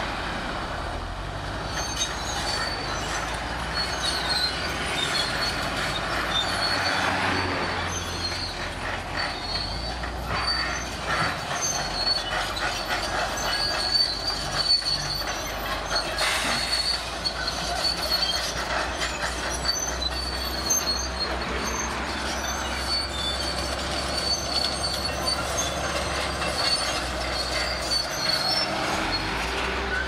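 Shantui SD22 crawler bulldozer's diesel engine running under load while its steel tracks squeal and clank over and over as it drives and pushes rock and dirt with its blade.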